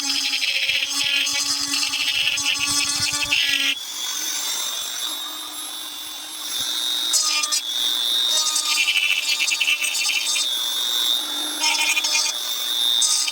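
High-speed handheld power grinder running with a steady whine while its bit grinds an airsoft pistol grip, the grinding coming in repeated bursts as the bit is pressed on and lifted off. This is the rough first shaping of the grip.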